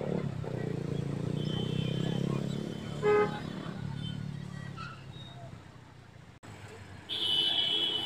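Road traffic: vehicle engines running with a steady low rumble, and one short, loud horn toot about three seconds in. A second, higher-pitched toot sounds near the end.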